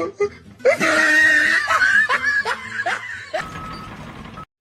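A person laughing in a run of short, pulsing bursts, starting about a second in and lasting a couple of seconds. Then a steady low background noise with a faint tone, which cuts off suddenly near the end.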